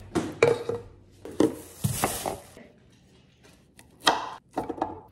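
Knocks and clatter of ginger root and utensils being handled on a plastic cutting board, then a short burst of scraping about four seconds in as the ginger is peeled.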